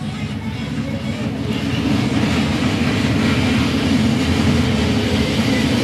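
Diesel locomotive rumble and rail noise heard from a moving train, growing louder about two seconds in as it passes a diesel locomotive close alongside.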